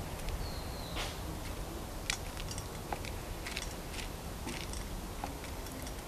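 Eurasian nuthatch pecking seed at a hanging seed feeder: irregular light clicks and taps. A short high bird whistle comes about half a second in, over a low background rumble.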